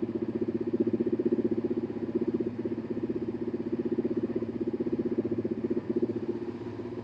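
Suzuki SV650's V-twin engine idling steadily, with an even, rapid pulse.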